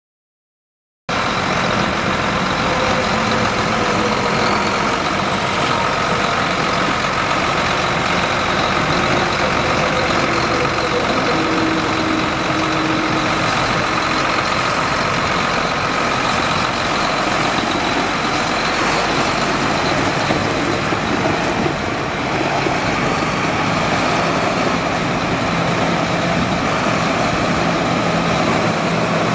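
John Deere 8770 tractor's six-cylinder diesel engine running steadily, cutting in suddenly about a second in.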